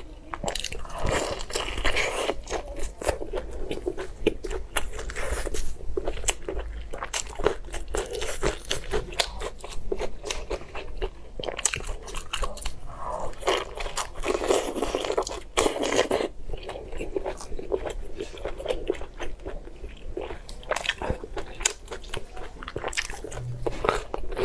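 A person biting into and chewing meat, with crunchy bites and a dense run of sharp clicks and smacks throughout.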